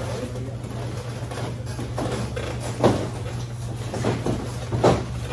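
Dull thuds of boxing-glove punches landing during sparring, mixed with shuffling feet on the ring canvas, the two loudest thuds about three and five seconds in, over a steady low hum.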